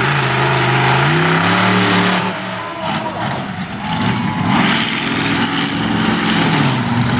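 Roughneck monster truck's engine revving hard as it drives, its pitch climbing over the first two seconds, dropping back, then climbing again about four seconds in before falling off near the end.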